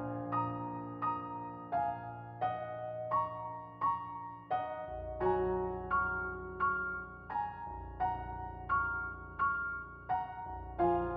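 Soft, slow piano background music: single notes struck about once or twice a second over held lower chords.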